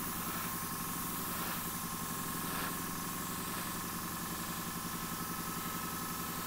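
A small electric motor running steadily: a constant hum with a fast regular low throb and a steady high whine, over a light hiss.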